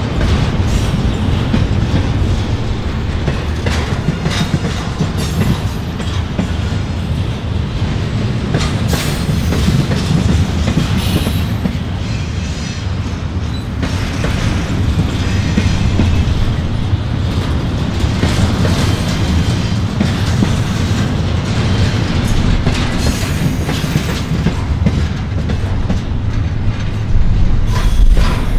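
Train rolling past on the rails: a steady heavy rumble with scattered clicks and clatter from the wheels on the track, the low rumble swelling near the end.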